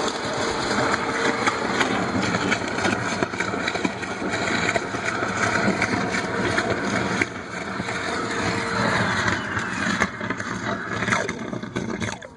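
Wet vacuum running steadily, sucking water out of the hole around a broken water main. Its steady motor tone stops about nine seconds in, and the noise dies away near the end.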